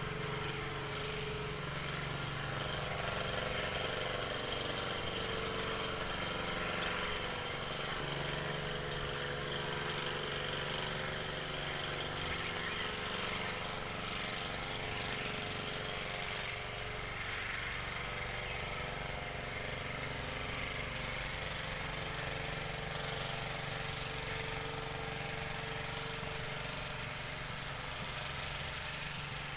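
Diesel locomotive engine of a freight train running with a steady hum, with a few faint high clinks now and then.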